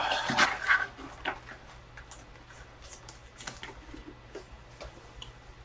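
Trading-card packaging being handled and opened by hand: scattered small clicks, taps and soft rustles, busiest in the first second, then fainter.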